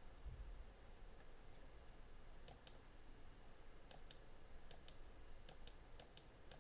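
Faint computer mouse clicks, mostly in quick pairs of button press and release, about five or six times in the second half. They are clicks accepting through a series of software prompts.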